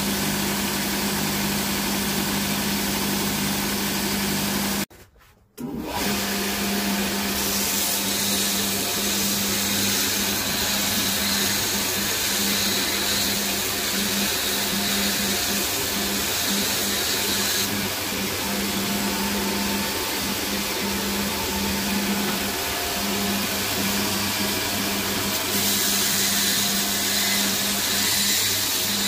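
Belt grinder running with a steady motor hum while a wood chisel is sharpened on it. The steel blade pressed against the abrasive belt adds a grinding hiss, throwing sparks, from about seven seconds in to about seventeen seconds, and again near the end. The sound drops out for half a second about five seconds in.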